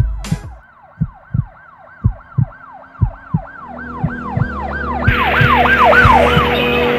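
Emergency vehicle siren in a fast yelp, wailing up and down about three times a second and growing louder. Low thumps come in pairs about once a second during the first half, and an engine rumble and a rushing hiss join in the second half.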